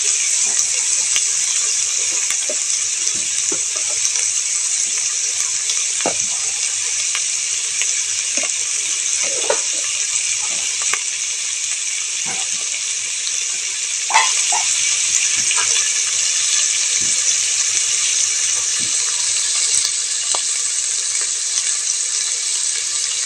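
Chopped meat frying in oil in a pot: a steady high sizzle with scattered small pops and crackles.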